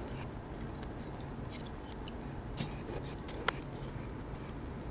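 Light scattered clicks and scrapes of a bare LCD display being worked off its pin header, over a steady low room hum. The two sharpest clicks come about two and a half and three and a half seconds in.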